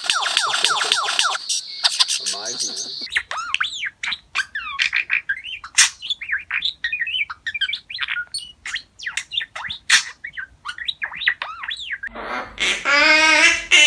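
A parrot chirping, whistling and squawking in a string of short, quick calls and pitch glides, with a few sharp clicks. Near the end a held pitched sound with a buzzy, reedy tone comes in.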